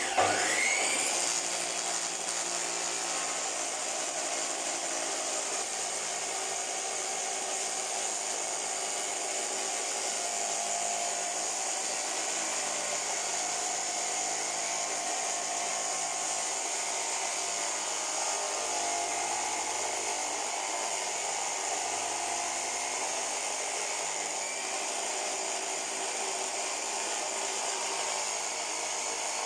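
Homemade sliding-head cutting saw's electric motor spinning up with a rising whine, then running steadily as its disc cuts through a masonry block.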